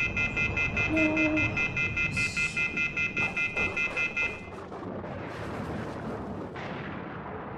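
Telephone off-hook warning tone: a rapid on-off pulsing of several high tones, about five a second, which cuts off about four seconds in and leaves a steady rushing noise.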